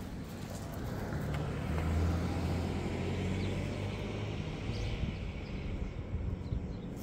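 A car driving past, its low engine hum building to a peak about two seconds in and then fading away.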